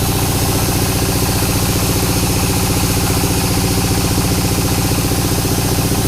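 Engine idling steadily with an even, rapid beat.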